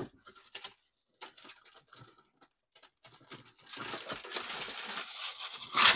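Light clicks and rustles, then from nearly four seconds in aluminum foil crinkling, growing louder to a sharp crackle near the end.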